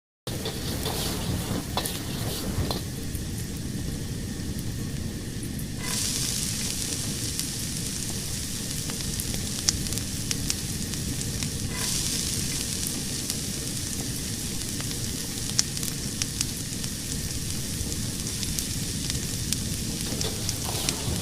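Fire sound effect: flames burning with a dense steady hiss, thick with small crackles and a few sharper pops. It cuts in abruptly from silence at the very start.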